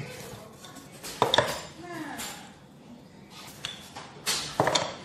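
Two short bursts of kitchen clatter, about a second in and again near the end: knocks and clinks as a wooden rolling pin and utensils are handled on the worktop while pizza dough is rolled out.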